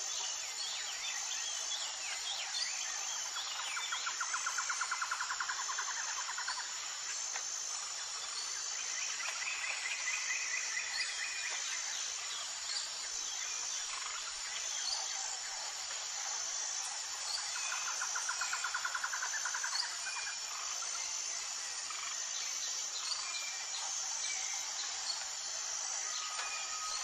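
Outdoor nature ambience: insects trilling steadily at a high pitch, with scattered bird chirps and three rapid trills of about two seconds each.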